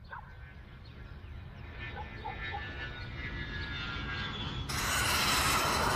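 Sound-effect intro of a rap track: a low rumble fades in and swells, with a few faint short calls near the start and about two seconds in. Near the end a sudden loud rush of noise cuts in.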